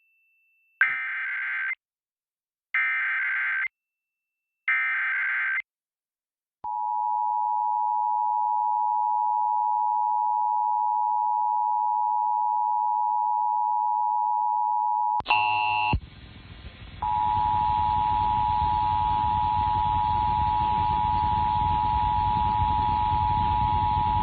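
Emergency Alert System broadcast tones: three one-second bursts of SAME header data, then the two-tone attention signal held for about eight and a half seconds. About 15 seconds in there is a short data burst and a brief drop-out, then the two-tone attention signal starts again over a steady hissy background from a noisier radio feed.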